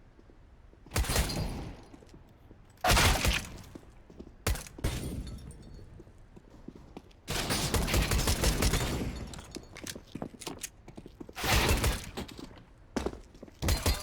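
Heavy breathing close to the microphone: about five loud, rough breaths at irregular intervals, the longest running about two seconds, with small clicks between them.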